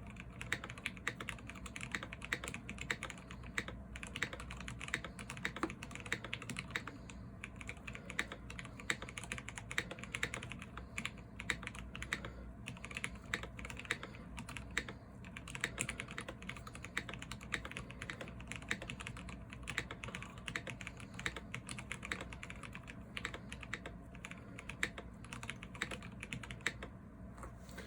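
Fast continuous typing, about 83 words per minute, on a custom Salamander TKL mechanical keyboard with Zealios V2 67g tactile switches lubed with Tribosys 3204, a carbon fiber plate and PBT keycaps: a rapid, unbroken stream of key clacks with the odd space bar stroke, stopping about a second before the end.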